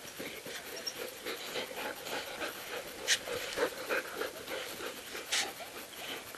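Eurohound sled dog panting, out of breath from chasing a ball, with a couple of short sharp clicks about three and five seconds in.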